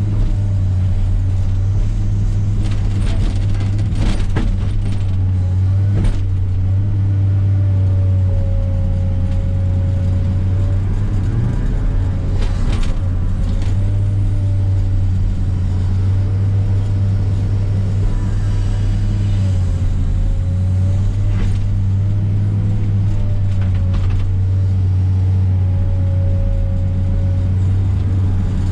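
Komatsu PC300 excavator running steadily under load while working brush: a constant low diesel drone with a hydraulic whine that rises and falls as the boom and bucket move, and a few sharp knocks and cracks.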